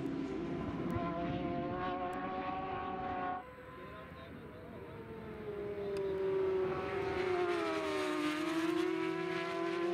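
Superbike racing motorcycle engines at high revs, their pitch climbing as they accelerate. The sound drops sharply a third of the way in, then builds again as a bike comes closer, its pitch dipping and rising again near the end.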